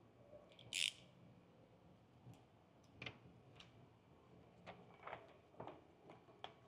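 Snap-off utility knife blade trimming window tint film against a glass board: one short, louder scrape about a second in, then a scattering of faint light clicks and scratches as the blade tip moves along the film's edge.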